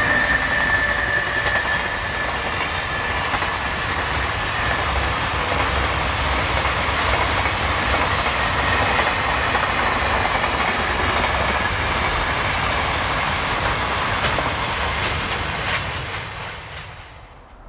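Freight train of loaded Koki container flatcars rolling past at speed: a steady rumble and clatter of wheels on the rail, with a high tone fading away over the first few seconds. Near the end the sound drops off quickly as the last wagon goes by.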